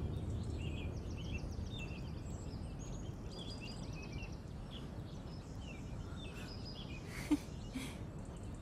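Outdoor ambience of birds chirping and trilling over a low steady background hiss. Near the end come two brief sounds about half a second apart.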